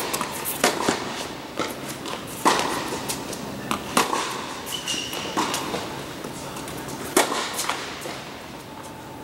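Tennis rally on an indoor hard court: sharp pops of racket strings hitting the ball and the ball bouncing, a hit every second or so, each echoing in the large hall, dying away near the end.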